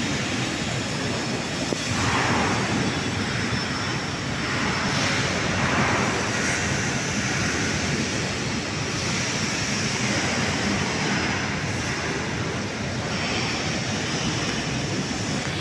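Overhead crane's electric hoist running during a load test: a steady mechanical rush with a faint high whine, swelling slightly about two and five seconds in.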